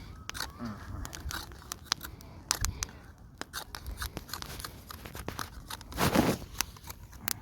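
Campfire crackling, with irregular sharp pops and snaps, and a short, louder rustling burst about six seconds in.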